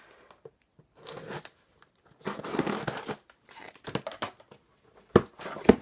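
Cardboard shipping box being unpacked by hand: packing tape and paper tearing and crinkling in a few rustling stretches, then two sharp knocks near the end.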